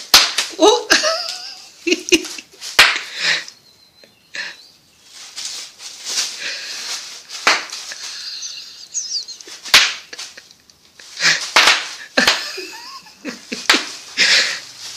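Bubble wrap popping under a toddler's bare feet in irregular sharp snaps, some in quick clusters, with bursts of laughter between them.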